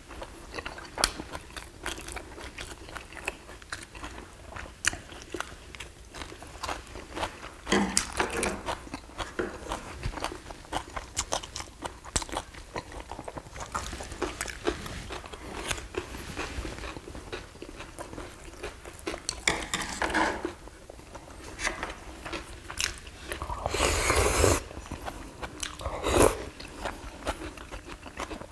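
Two people chewing and crunching on a Korean home meal of rice, stew and side dishes, close to the microphone, with frequent short clicks of chopsticks and spoons against ceramic bowls.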